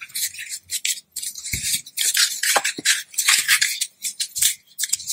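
Paper rustling and being creased as hands fold the sides of a sheet, in irregular scraping strokes.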